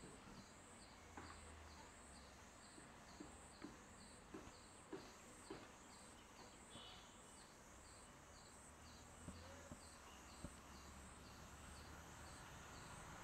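Near silence: faint outdoor quiet with a high chirp repeating about twice a second and a few faint scattered clicks.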